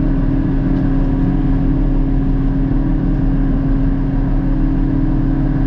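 Forage harvester running steadily under load: an even engine-and-machine hum with one constant tone over it.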